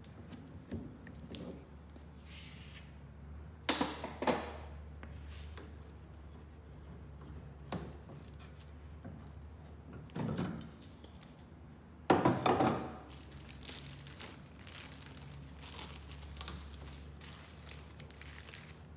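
Wooden handscrew clamps being unscrewed and pulled off the coaming, and a chisel knocking loose small wooden blocks glued on with cured epoxy: scattered wooden knocks, clunks and scraping clicks. There are two sharp knocks about four seconds in and a louder cluster around twelve seconds, over a low steady hum.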